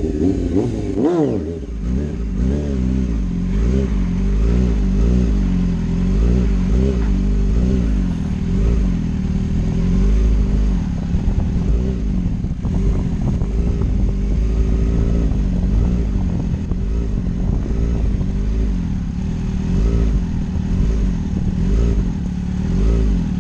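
Honda CBR600F4i inline-four engine running under throttle while the bike is held in a wheelie. Its pitch swells up and down over and over, with one sharp rev about a second in. Heavy wind rumble on the microphone runs underneath.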